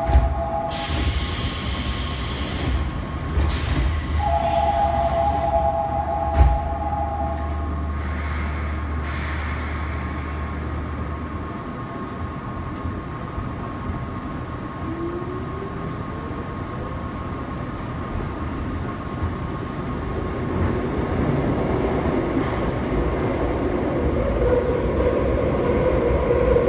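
Seoul Metro Line 2 rheostatic-control electric train pulling out. The doors thud shut, air hisses, and a two-note chime sounds. A low hum stops, then the traction motors' whine rises and the running noise builds as the train accelerates.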